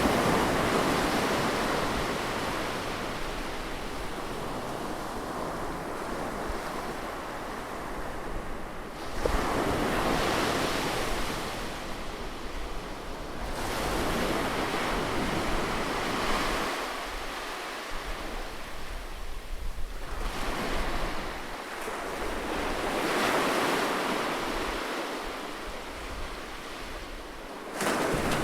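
Ocean surf on a beach: waves break in a rushing wash of noise about every six to nine seconds, each ebbing before the next one comes in.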